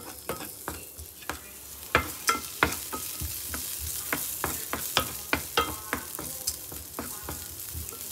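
Wooden spatula stirring chopped bawang in a non-stick frying pan: irregular scraping taps against the pan over the hiss of sizzling oil, as the bawang is sautéed until fragrant.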